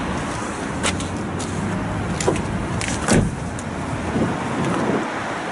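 Vauxhall Astra hatchback's tailgate being pulled down and shut with a thud about three seconds in. A few clicks and knocks come before it, over steady outdoor traffic noise.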